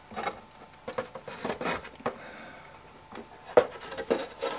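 Metal chassis of a tube radio being worked out of its bakelite case by hand: a series of scattered knocks, clicks and light scrapes, the loudest about three and a half seconds in.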